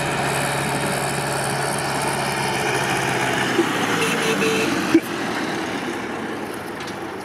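Ursus C-360 tractor's four-cylinder diesel engine running steadily as the tractor pulls a trailer past; it is smoking, which the owner puts down to the engine burning oil. A sharp click about five seconds in, after which the engine is quieter and fades.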